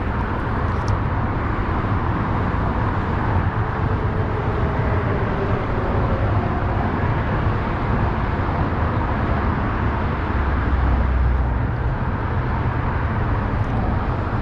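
Steady highway traffic rumble, with a heavier vehicle swelling the low rumble about ten seconds in.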